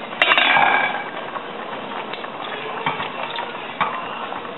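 Metal cooking pots clinking on a gas stovetop: a sharp clank about a quarter second in, a short rattle, then a steady hiss with a few light clinks.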